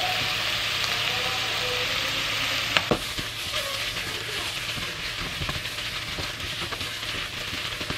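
Diced chicken and onion sizzling steadily in oil in a nonstick frying pan. About three seconds in there is one sharp knock, and after it a spatula scrapes and stirs through the pieces.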